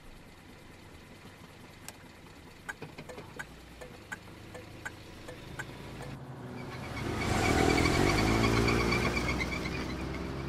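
Car driving on a highway, with a few scattered light ticks. From about seven seconds a loud passing vehicle builds up, a held, horn-like tone whose pitch slides down as it goes by, then fades.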